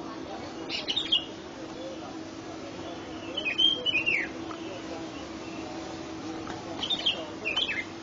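Birds chirping at dawn: three short bursts of sharp, high calls, about a second in, around three to four seconds in with falling notes, and near the end. A steady low hum runs beneath.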